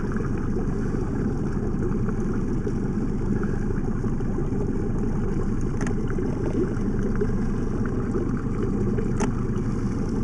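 Mercury outboard motor running steadily on a moving boat, a low even rumble.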